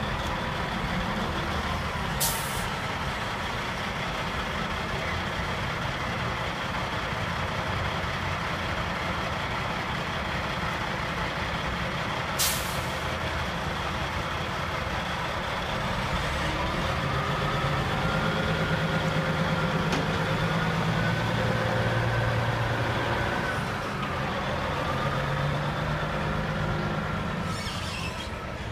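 Diesel tractor-trailer engine running as the truck pulls a shipping container away slowly, with two short sharp air-brake hisses, about 2 and 12 seconds in. From about 17 to 23 seconds the engine gets louder under load, with a whine that rises and falls.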